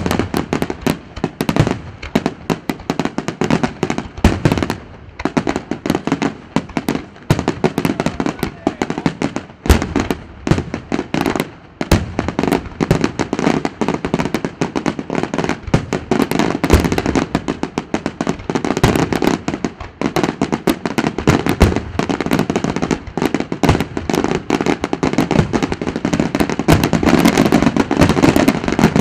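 Aerial fireworks display: a dense, unbroken barrage of bangs and crackling reports, growing thicker and louder over the last few seconds.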